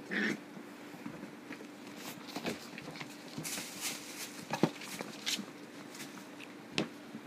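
Small dogs playing on a carpeted floor: scattered paw patter, rustles and light knocks. There is a brief louder sound right at the start and the sharpest knock a little past halfway.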